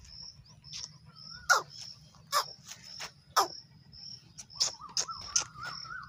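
Insects, cricket-like, chirping steadily at about three chirps a second, with several sharp clicks or snaps that are the loudest sounds. A wavering whistle-like tone joins about three-quarters of the way through.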